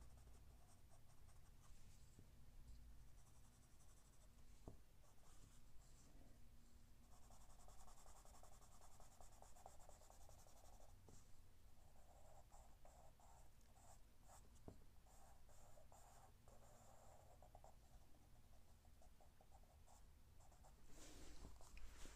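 Graphite pencil shading on drawing paper: faint scratching strokes that come in stretches, with a few light ticks.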